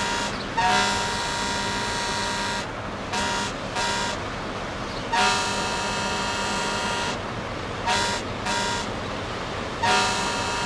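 Ship's horn sounding one long blast followed by two short ones, twice over, with a third long blast starting near the end, over a steady noisy background.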